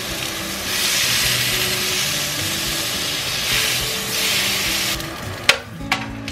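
Pork tenderloin sizzling as it sears in hot oil in a stainless steel pan. The sizzle swells about a second in while the meat is turned with tongs, then two sharp clicks come near the end.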